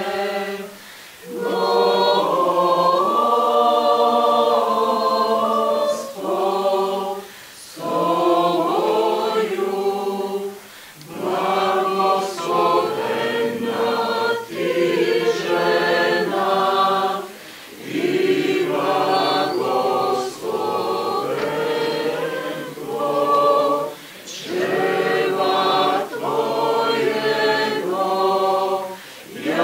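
Mixed choir of women's and men's voices singing a cappella, in sung phrases separated by short pauses every few seconds.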